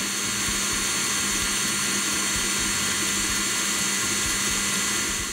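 KitchenAid Artisan stand mixer running at top speed, its wire whisk beating egg whites and sugar into meringue in a glass bowl. The motor gives a steady whine.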